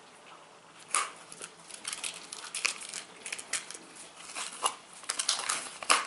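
Leatherman Rebar multitool and its leather sheath being handled: scattered short clicks and leather rustles as the tool is worked in and out of the snug sheath.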